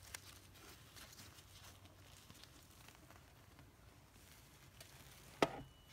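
Quiet handling noise: faint taps and rustles as the used cartridge oil filter element is turned over in hand on a microfiber towel, with one sharp click near the end.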